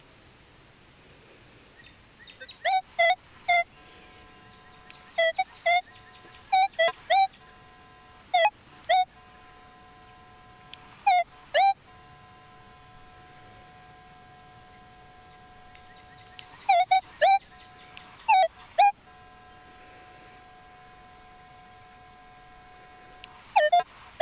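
Minelab CTX 3030 metal detector sounding target tones: short, loud beeps in quick groups of two or three, one per sweep of the search coil over a buried metal target, with a faint steady tone between the groups.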